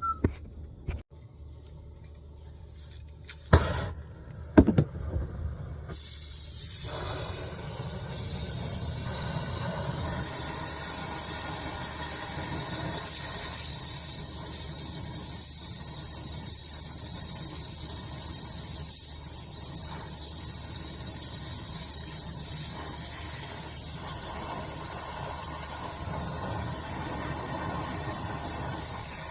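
A couple of sharp clicks, then about six seconds in a brazing torch flame starts and hisses steadily while a copper refrigerant line joint is brazed.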